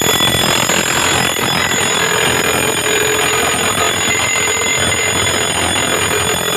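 Electric fire alarm bell of an FDAS system ringing continuously: the zone being tested has gone into alarm. It cuts in suddenly and rings steadily and loudly.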